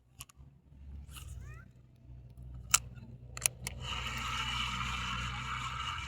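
Small boat engine running steadily, with a few sharp clicks and knocks. About four seconds in, a steady higher hiss joins it.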